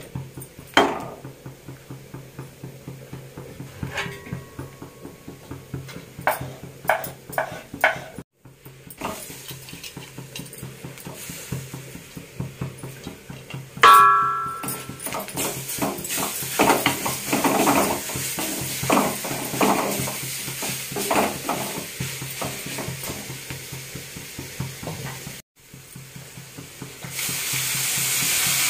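A wooden spatula stirs and scrapes fried onion masala in a kadai, making a run of small knocks and scrapes. About halfway there is a sharp clatter with a brief ringing as chopped tomatoes are tipped in, and the stirring goes on busier. Near the end water poured into the hot pan sets off a loud, steady sizzling hiss.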